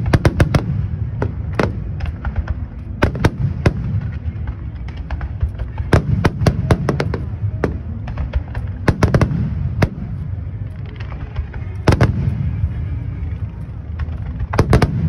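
Fireworks display: aerial shells bursting in quick volleys of sharp bangs, in clusters every few seconds, over a constant low rumble.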